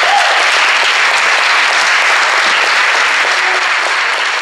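Audience applauding: loud, steady clapping that eases slightly near the end.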